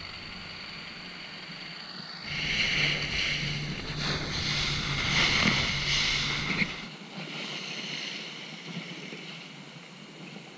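A rigid inflatable dive boat under way on choppy sea: wind on the microphone and water rushing along the hull over the steady drone of its outboard motors, louder from about two seconds in.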